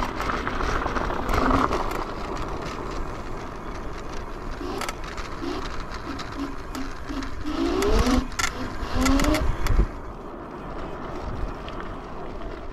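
Riding a Yugen RX11 electric scooter: wind rushing over the microphone with tyre and drive noise, and a few short rising tones between about five and nine seconds in.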